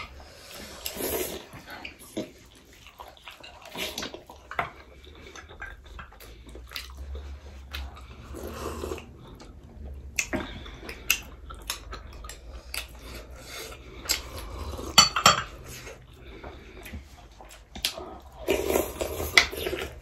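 Close-up eating sounds: metal spoons clinking and scraping on glass plates and cups, with chewing and slurps of chicken soup sipped straight from small glass cups.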